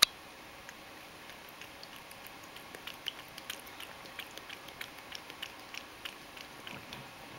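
Ragdoll cat lapping milk from a stainless steel bowl: a quick run of small wet clicks, about three or four a second, strongest in the second half. A single sharp click at the very start is the loudest sound.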